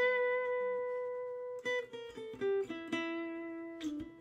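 Short guitar outro: a chord rings out and slowly fades, then a few plucked notes follow about halfway through, and another chord rings on.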